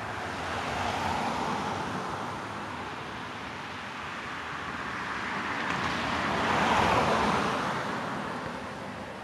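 Road traffic: cars passing along the street, a rush of tyre and engine noise that swells and fades, lightly about a second in and louder around seven seconds in.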